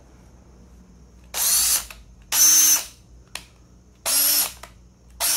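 Porter Cable 20V cordless impact driver spinning unloaded in three short trigger pulls of about half a second each, the motor whine rising and falling with each, and a fourth starting at the end. It is being test-run after its broken forward/reverse transfer part was replaced.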